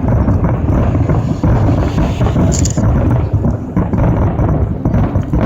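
Fireworks going off in quick succession: a loud, continuous rumble of overlapping booms with crackling.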